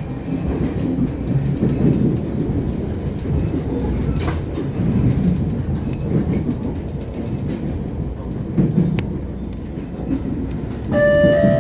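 Passenger train on the Vitória–Minas railway rolling along the track, heard from inside the coach: a steady rumble of wheels on rail with clickety-clack over the joints. Near the end an electronic chime from the on-board PA sounds, the signal before the next-stop announcement.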